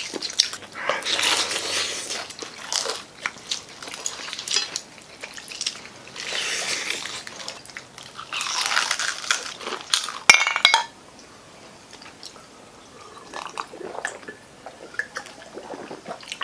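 Loud crunching bites into crispy fried chicken with chewing, coming in several bursts, and a sharp click about ten seconds in.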